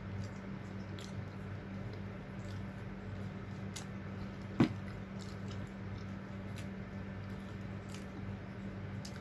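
Close-up eating sounds: wet chewing and small mouth clicks over a steady low hum, with one sharp click about halfway through.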